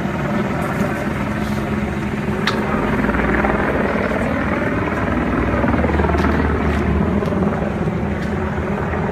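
Steady engine drone with a low hum and rushing noise, swelling slightly in the middle.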